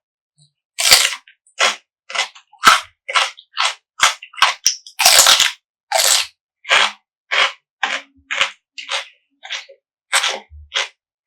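Close-miked chewing of crunchy food: a crisp crunch on each chew, at a steady rhythm of about two chews a second.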